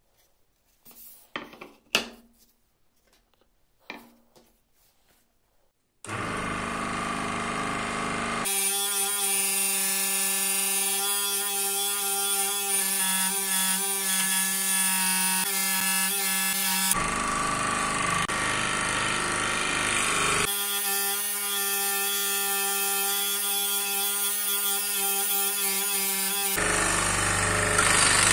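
Electric scroll saw running and cutting through a wooden board, a loud steady buzz with a strong hum, starting suddenly about six seconds in. Before it, a few light knocks of handling.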